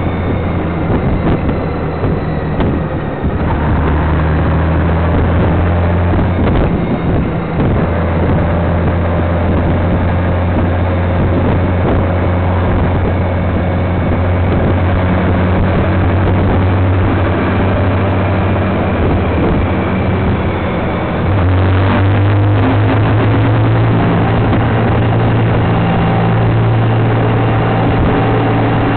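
Honda Gold Wing touring motorcycle running at a steady road speed, an engine drone mixed with wind and road noise. About three-quarters of the way in it gets louder and fuller, as the bike rides into a road tunnel and the sound is closed in by the tunnel walls.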